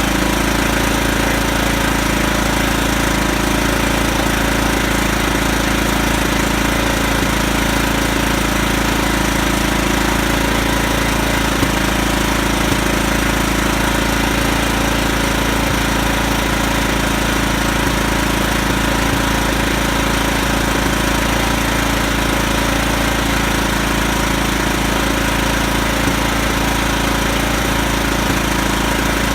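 Kohler Command CV14 single-cylinder engine running at a steady speed on its freshly rebuilt Walbro carburettor.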